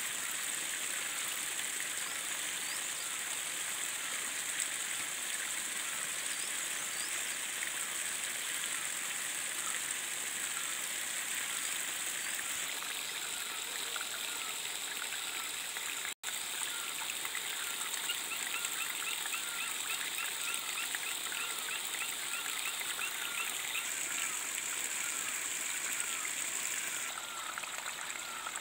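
Spring water pouring from small wooden spouts and trickling over stones in a steady splashing hiss. Short chirps repeat in the background throughout. The sound drops out for an instant about halfway.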